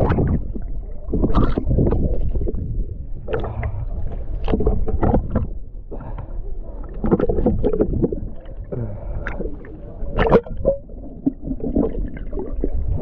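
Water splashing and sloshing right at the microphone in irregular bursts, over a constant low rumble.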